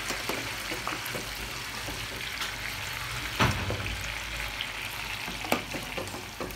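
Diced sausage deep-frying in a pot of hot oil: a steady sizzle with crackles, while a metal slotted spoon stirs it and knocks against the steel pot, loudest about three and a half seconds in and again near five and a half.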